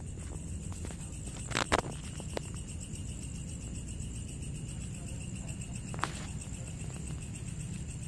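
Crickets chirping steadily in a high, rapidly pulsing chorus, with a few sharp clicks, the loudest about two seconds in and another about six seconds in, over a steady low rumble.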